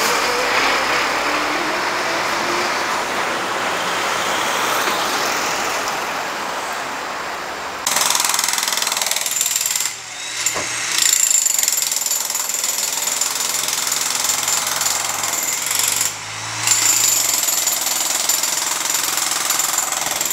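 A heavy crane truck drives past with its engine running. About eight seconds in, a jackhammer starts breaking up a floor, rattling steadily with a thin high whine, and stopping briefly twice.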